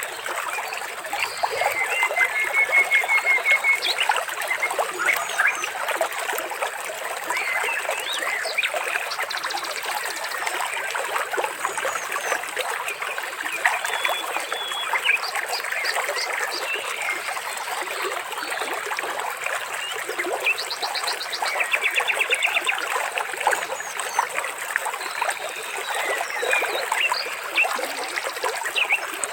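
Water trickling steadily, with short trilled bird calls a few times over it.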